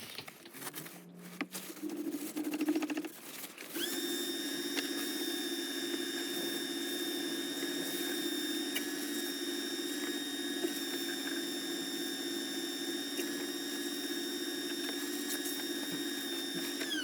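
Wood lathe running during friction polishing of a turned wooden gear knob. It comes up to speed in the first few seconds, then holds a steady high-pitched whine for about thirteen seconds, and the pitch falls away as the lathe is switched off at the end.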